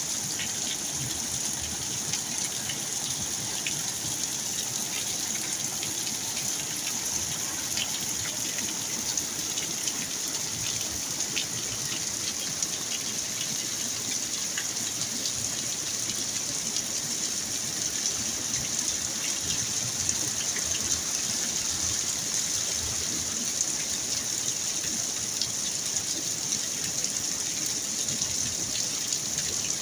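Rain pouring down steadily in a storm, with faint scattered ticks of drops.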